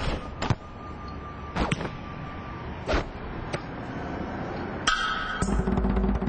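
Several sharp thuds of footballs being kicked, spaced irregularly over the first few seconds. Near the end a low, steady musical tone swells in and becomes the loudest sound.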